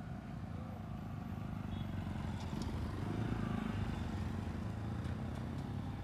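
Motorcycle engines running as a few bikes pull out and ride past, growing steadily louder as they approach.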